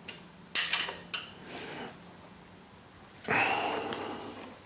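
Metal clinks and a clatter as a log splitter's metal cover plate is set back onto its hydraulic valve housing, with a few smaller clicks after it, then a short scrape about three seconds in.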